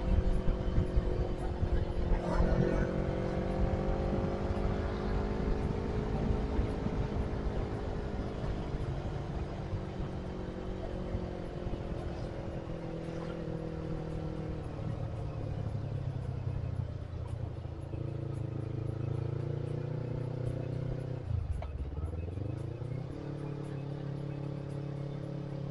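Motorcycle engine running while riding, its pitch slowly rising and falling with the throttle; about four seconds before the end it drops low and climbs back up.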